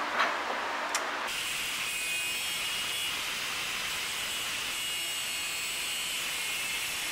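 Handheld angle grinder with a cut-off disc cutting partway into the steel kart frame at the spindle mount: a steady high whine with hiss that starts about a second in and holds to the end. Before it, a couple of light knocks as a wheel is fitted onto its hub.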